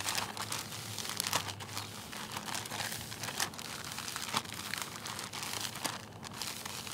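Plastic bag of mixed vinyl cement patching compound crinkling as hands squeeze and work it: an irregular run of crackles.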